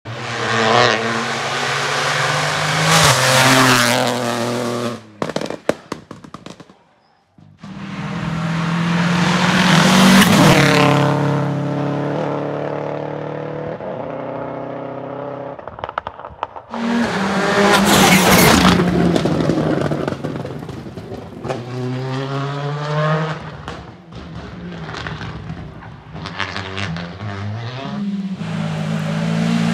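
Rally cars at full throttle on a tarmac stage, passing loud and close one after another. Each engine revs high, with its pitch stepping and gliding through gear changes.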